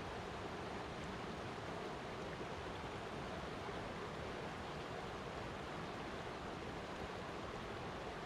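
Flowing water rushing steadily, an even wash of noise that does not change.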